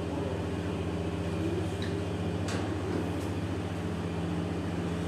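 Girnar Machine Industries automatic roti-making machine running with a steady low hum, with a few faint clicks about two seconds in.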